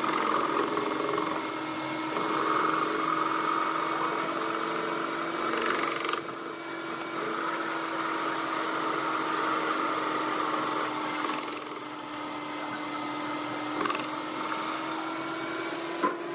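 An electric machine tool running steadily: a constant motor hum of one pitch with a hiss above it, dipping briefly about six seconds in and again near twelve seconds.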